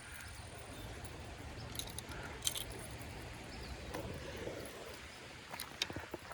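Faint, scattered light clicks and taps of fishing gear being handled, over low outdoor background noise.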